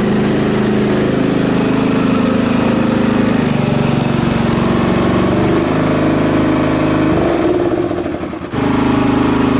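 Small engine of a miniature diesel-style ride-on locomotive running as it passes close by, its note changing pitch a couple of times, with a brief dip about eight seconds in.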